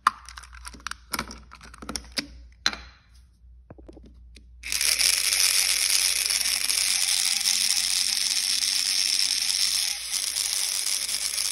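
A few plastic clicks from the toy chassis being handled. Then, about four and a half seconds in, the small electric motor of a battery-powered TOMY toy lorry starts and runs with a loud, harsh, steady whir. It is a worn motor that needs replacing.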